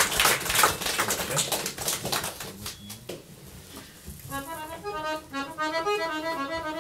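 Clapping from a small audience that dies away over the first three seconds, then a piano accordion starts playing a slow run of held notes about four seconds in.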